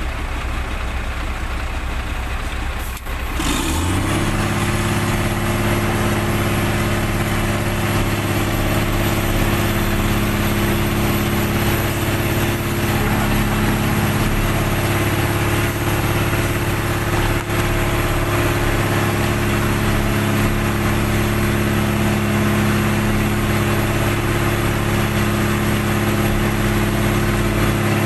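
HOWO dump truck's diesel engine running close by, at first at a low idle. About three seconds in it steps up sharply to a higher, steady speed and holds it evenly.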